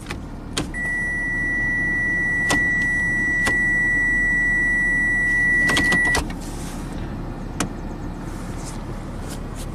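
The car's electronic warning buzzer sounds one steady, high-pitched tone for about five seconds, cutting off suddenly, while the gear selector clicks a few times as it is moved. A steady low hum runs underneath.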